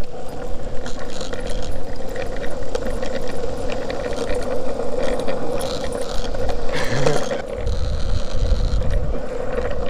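Skateboard wheels rolling steadily along asphalt, with wind rumbling on the microphone, heavier in the second half.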